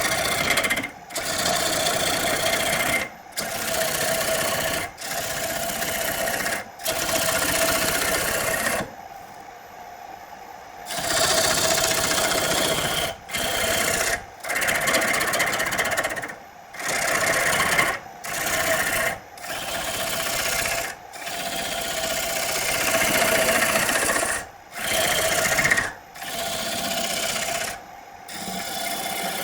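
A power tool working wood in repeated short bursts of one to two seconds, each stopping abruptly. A steady motor whine runs under the scraping.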